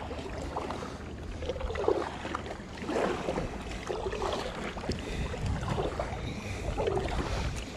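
Kayak paddle strokes dipping and pulling through calm river water, a watery swish with each stroke a little more than a second apart, over a steady low rumble of wind on the microphone.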